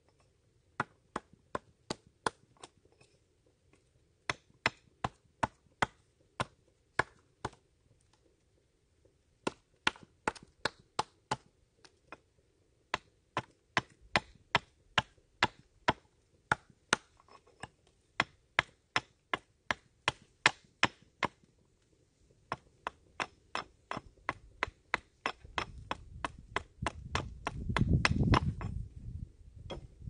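Small hatchet or knife chopping a piece of wood on a wooden table: sharp chops about two to three a second, in runs with short pauses. A low rumble builds near the end, briefly the loudest sound.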